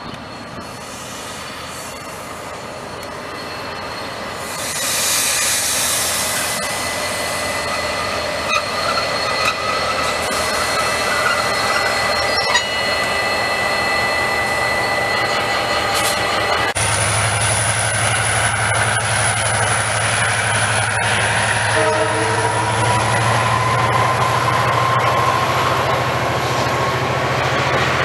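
Diesel-hauled passenger train of ex-British Rail Mk2 carriages passing close by. The locomotive's engine swells about four seconds in, then the carriages' wheels run past with thin steady squealing tones. About seventeen seconds in the sound changes abruptly to another pass of the carriages, with a steady low hum and a high whine.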